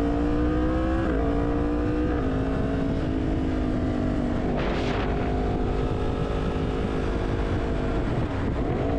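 Yamaha MT-10's crossplane inline-four engine running under way: its pitch climbs, drops sharply at upshifts about one and two seconds in, then holds fairly steady at cruise. A steady low rumble of wind runs underneath, and a brief hiss comes about halfway through.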